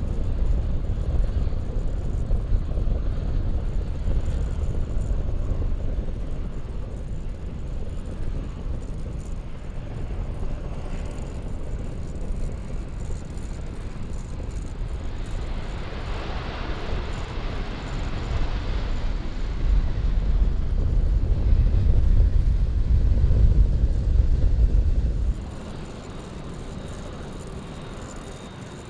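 Jet airliner engines rumbling steadily, with a higher hiss that swells and fades partway through. The rumble grows louder, then cuts off suddenly near the end.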